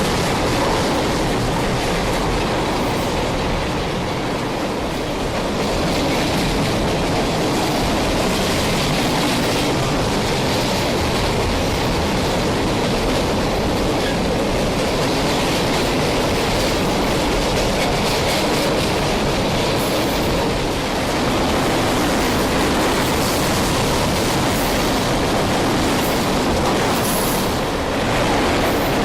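CSX freight train of tank cars rolling steadily past a grade crossing, with the continuous noise of the wheels and cars going by.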